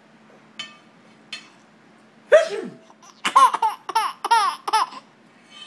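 Baby laughing: a run of about five quick, high-pitched laughs, after one sudden loud vocal burst with falling pitch about two seconds in.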